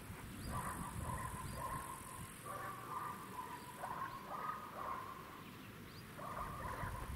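Electronic warning bell of an active AŽD level crossing, ringing in uneven clusters of tones.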